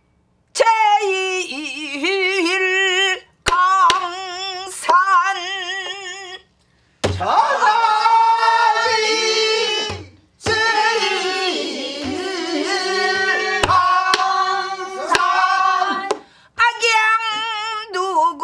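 A woman singing pansori in a strong, heavily vibrated voice, long wavering notes in phrases broken by brief pauses. She beats time on a buk barrel drum with a stick, a few sharp strokes scattered through the singing, some with a deep thud.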